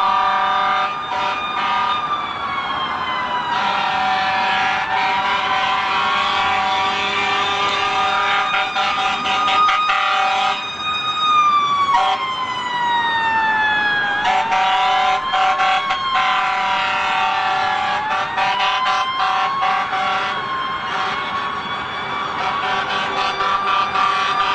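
Several emergency vehicle sirens sounding at once, their wails sliding up and down in pitch and overlapping, over steady held tones.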